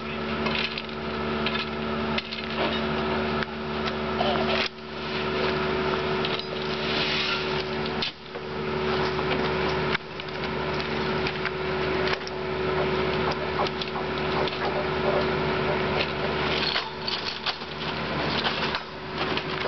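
Heavy track-maintenance machinery running with a steady droning engine hum, with scattered metallic knocks of work on the rail and ballast. The sound jumps abruptly several times.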